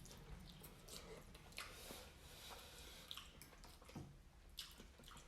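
Faint, wet chewing and mouth sounds of someone eating creamy chicken Alfredo pasta, with a few light clicks.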